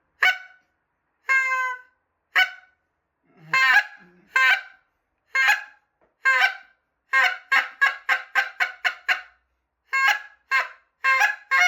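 Buck Gardner short-reed goose call blown in a string of honks, the moan broken over into a higher note. Single honks come about a second apart, then from about seven seconds in they speed up into quick runs of several honks a second.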